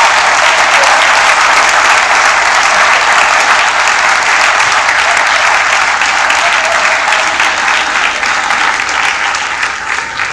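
An audience applauding: sustained clapping that begins to fade near the end.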